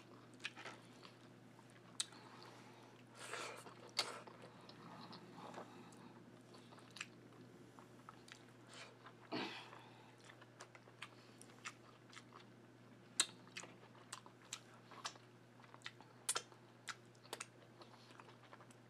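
A person chewing a mouthful of soft food, ackee and saltfish with callaloo and rice, close to the microphone. Sharp mouth clicks and smacks come at irregular intervals, with a couple of longer smeared mouth sounds around a third and halfway through.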